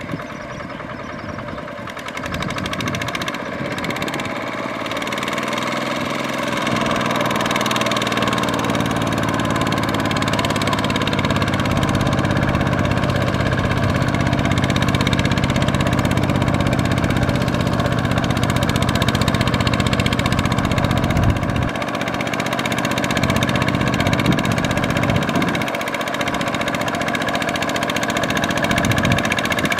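Single-cylinder Kubota ZT120 diesel engine of a two-wheel walking tractor, running steadily under load as it hauls a trailer of rice sacks through mud and water. It grows louder over the first several seconds, then dips briefly a little past the middle before picking up again.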